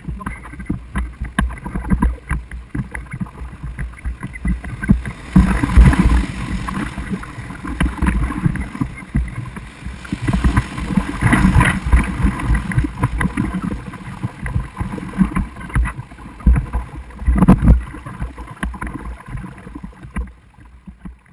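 River water rushing and splashing around a wooden dory's hull as it runs rough water, with wind rumbling on the microphone. Louder surges of splashing come about six seconds in, near the middle and late on, and the sound fades out at the end.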